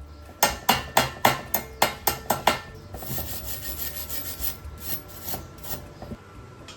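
Hand filing on metal: a run of quick scraping strokes, about four a second, then a finer, faster scraping with a high hiss, and a few more strokes near the end.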